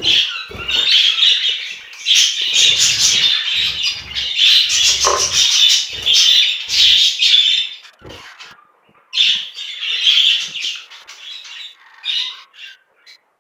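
Budgerigars squawking and chattering harshly in repeated runs, with dull knocks from the nest box being handled under some of them; the calls die away near the end.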